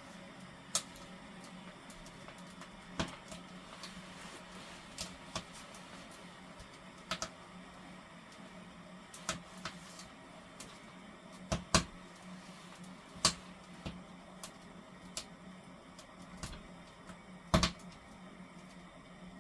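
Firewood burning in a wood stove, crackling with sparse, irregular sharp pops, the loudest near the end, over a low steady hum.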